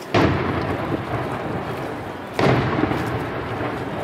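Two aerial firework shells (Maltese colour shells, murtali tal-kulur) bursting about two and a quarter seconds apart. Each is a sharp bang followed by a long rolling rumble of echo.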